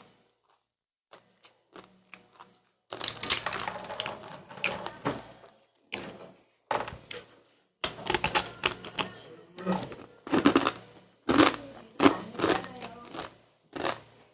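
Bursts of crackling, crunching clicks close to the microphone from eating snacks, starting about three seconds in and recurring every second or so.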